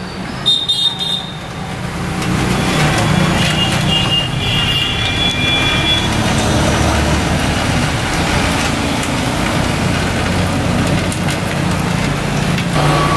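Old green coolant draining from a Bajaj Pulsar NS200's cooling system in a thin stream, splashing steadily into a metal drip tray as the coolant is changed. Near the start come a few clicks of the plastic coolant reservoir being handled.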